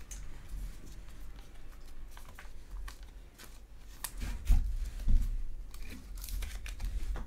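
A trading card is slid into a rigid clear plastic top loader: light plastic scraping and handling with scattered small clicks. Two sharper clicks come about four and a half and five seconds in.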